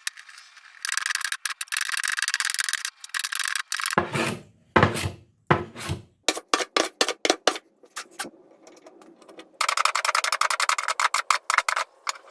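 Hand-held wood shaver blade scraping the old finish off a wooden cabinet. It makes one long stroke about a second in, then runs of quick short strokes later on. The blade has been adjusted so that it bites into the wood.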